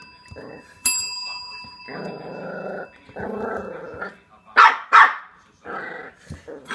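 Eight-week-old West Highland White Terrier puppy growling in two long growls, then giving two loud, sharp high barks and another short bark; a desk bell dings once about a second in as he paws at it, its ring fading over the next few seconds.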